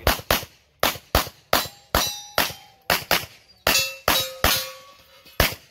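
9mm Glock 34 pistol firing a rapid string of about a dozen shots, mostly in quick pairs. After a few of the shots comes a brief metallic ringing, like steel targets being hit.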